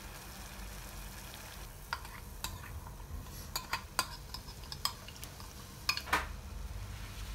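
Water boiling in a pot on a gas burner, with a steady bubbling hiss. From about two seconds in, a ceramic bowl gives about ten light clinks and taps against the pot as sauce is poured and shaken out of it. The loudest clinks come near the end.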